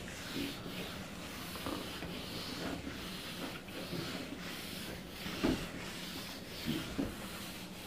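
A felt duster wiped back and forth across a whiteboard, erasing writing in a run of short rubbing strokes about once a second, with a soft thump past the middle.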